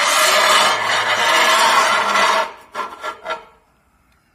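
Porcelain stoneware tile scraping across another tile: one long rasping scrape lasting about two and a half seconds, then a few short scrapes.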